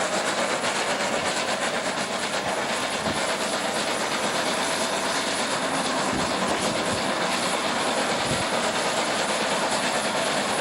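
Train of vintage FS Centoporte coaches running steadily: a continuous rumbling, rushing noise with a few faint knocks.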